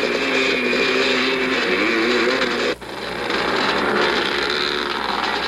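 Motocross motorcycle engines revving at a distance, their pitch wavering up and down, heard through the hiss of an old Super 8 film soundtrack. The sound drops out sharply nearly three seconds in and comes back over about a second, at a cut in the film.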